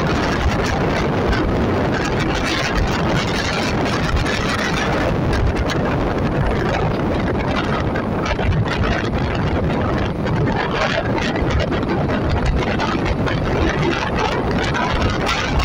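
Steady rush of wind buffeting the microphone, mixed with the road and engine noise of the vehicle carrying it at speed.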